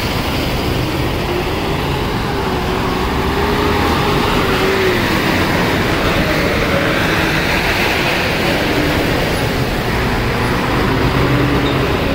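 Diesel tipper truck engines running as the trucks creep forward through mud, one engine's note drifting slowly up and down.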